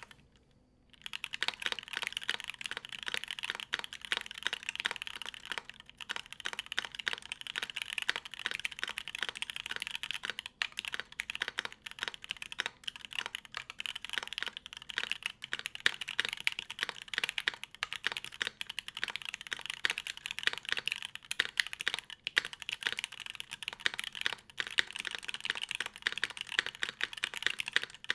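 Fast, continuous typing on a TKL mechanical keyboard with Tealio linear switches, an aluminium plate and an o-ring mount: a dense, even stream of keystrokes that starts about a second in.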